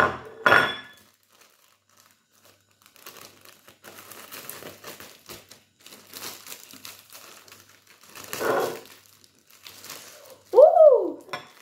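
Plastic instant-noodle seasoning sachets crinkling and being torn open by hand, in irregular crackles. A short hummed note rises and falls near the end.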